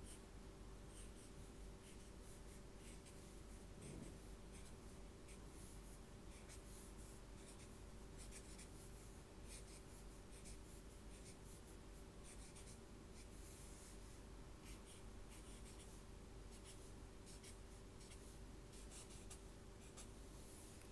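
Thick black felt-tip marker drawing many short, quick strokes on sketchbook paper, faint, over a steady low hum.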